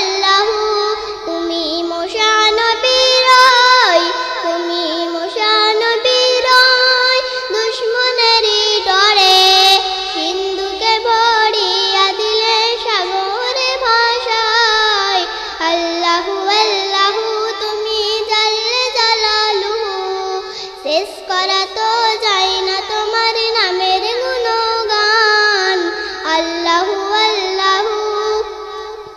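A young girl singing a Bangla Islamic gojol, a hamd in praise of Allah.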